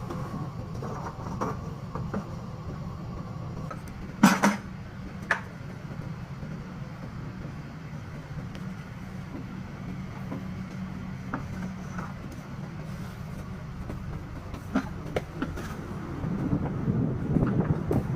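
A steady low mechanical drone with a few short, sharp metallic knocks, the loudest about four seconds in.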